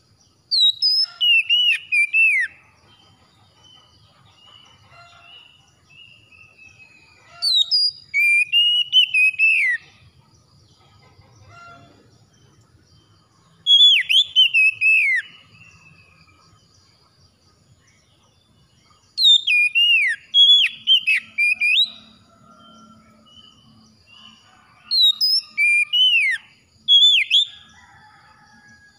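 Oriental magpie-robin singing: five loud phrases of clear whistles that mostly slide down in pitch, each two to three seconds long, with pauses of a few seconds between them.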